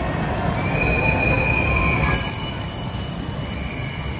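Drop-tower amusement ride lifting its seats: a steady mechanical rumble with a squeal early on, then a high steady whine from about two seconds in.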